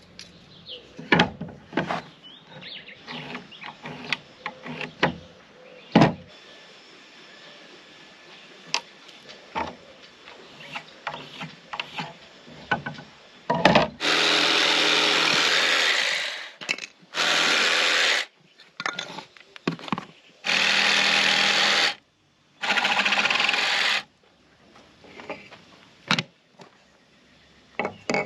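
A power tool run in four bursts of a second or two each, after a stretch of scattered knocks and clicks of handling work.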